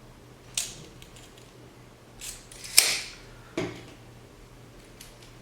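Handling noise from the parts of a smart-lock kit: four sharp clicks and clacks of small hard objects, the loudest about three seconds in.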